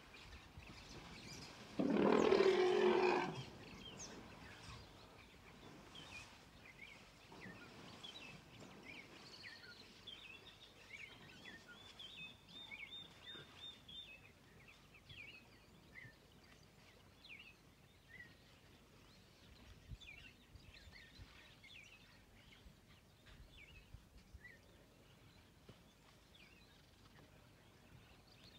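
An African savanna elephant trumpets once, a loud blast lasting about a second and a half about two seconds in. Faint chirping bird calls follow.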